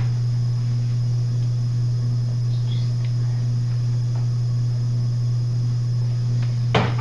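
Steady low electrical-sounding hum throughout, with one short sharp knock near the end.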